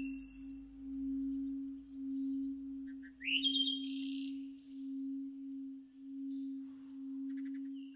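Relaxation backing track: a steady low humming tone that swells and fades about once a second, with birds chirping over it, loudest in a burst of chirps about three seconds in.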